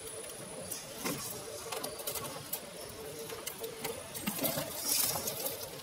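Electric motor and gearbox of a Reely Free Men RC rock crawler whining steadily as it crawls over rocks, with scattered clicks and knocks of tyres and chassis on stone. The whine drops away a little past the middle, and the knocks are loudest near the end.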